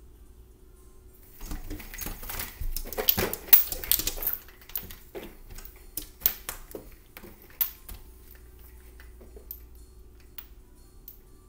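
Horizontal window blinds rattling and clattering as a cat climbs and hangs on the slats. A dense flurry of clacks comes about a second in, heaviest for a couple of seconds, then thins to scattered single clicks.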